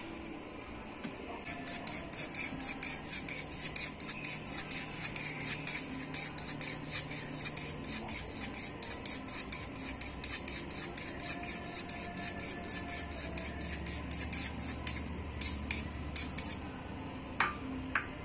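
Quick, even scraping or rasping strokes, about five a second, stopping about fifteen seconds in. A few sharp clicks follow.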